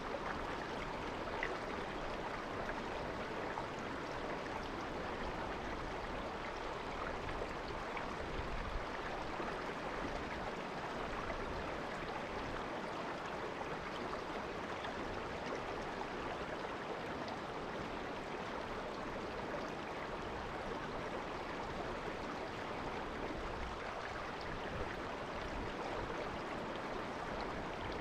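Shallow river water babbling steadily, an even, unbroken murmur of flowing water.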